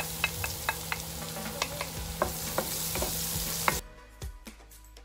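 Minced garlic sizzling in hot oil in a wok, stirred with a wooden spatula that clicks and scrapes against the pan. The sizzle cuts off suddenly near the end, leaving faint background music.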